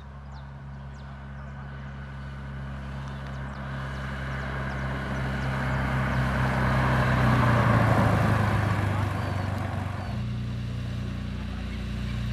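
Cirrus SR22's six-cylinder piston engine and propeller at low power while taxiing, a steady engine drone that grows louder as the plane comes close and passes, loudest about eight seconds in, then drops off about ten seconds in as it moves away.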